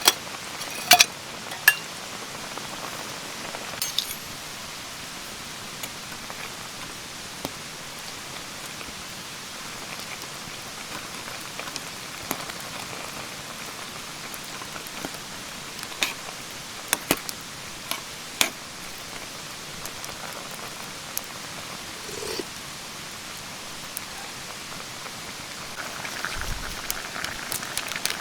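Steady rush of a mountain stream with scattered sharp clicks and clinks. Near the end a denser crackling hiss comes up.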